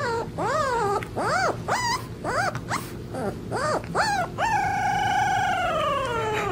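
Young puppy howling: a quick run of short rising-and-falling yips and whines, then one long drawn-out howl over the last two seconds that drops in pitch as it ends.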